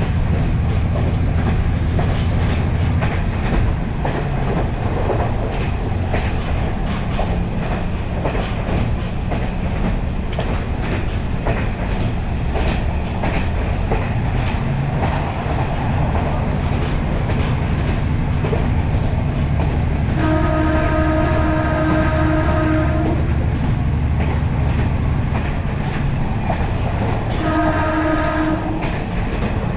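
Inside a KiHa 40-series diesel railcar running at speed: the diesel engine drones under the rumble and clatter of the wheels on the rails. The train's horn sounds twice, a long blast about two-thirds of the way in and a shorter one near the end.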